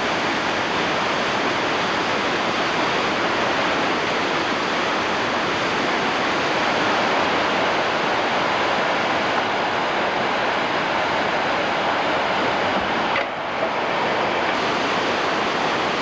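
Whitewater rushing steadily through a rocky mountain river, with a brief dip about thirteen seconds in.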